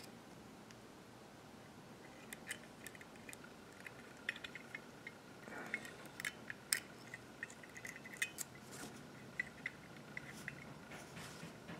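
Faint, scattered small metallic clicks and taps as fingers work a small spring and lever on a Walbro WF-7 carburetor body, winding the spring to set its tension, with a few sharper clicks a little past halfway.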